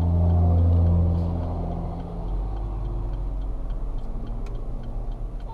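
A passing truck's engine running strong, a deep drone loudest in the first second or so and fading after about two seconds. A faint, steady ticking of the car's turn signal runs underneath.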